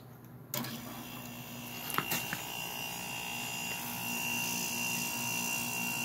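Kool King window air conditioner, out of its case, starting up as its compressor kicks on about half a second in. It settles into a steady hum and rush of fan air with a thin high whine, with a sharp click about two seconds in, and grows slightly louder as the compressor begins building head pressure.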